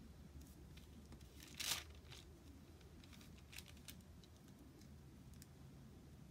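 Paper sticker being handled on a planner page: one short crinkle of paper about a second and a half in, then a few faint light taps as the sticker is pressed down.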